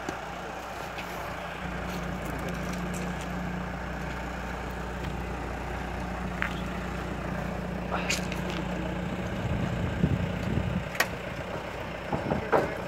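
Engine of a loading machine running steadily under load as it pushes a steam locomotive along the track, with a few sharp metallic knocks along the way.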